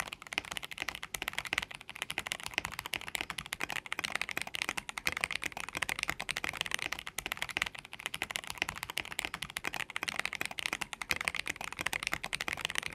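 Fast typing on an Akko ACR81 mechanical keyboard fitted with JWK Lagoon switches: a quick, unbroken stream of keystroke clacks.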